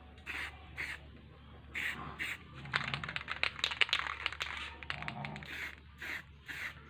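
Aerosol spray-paint can being worked on a scooter muffler: short hissing spurts in pairs about half a second apart, with a dense run of clicks and spurts in the middle.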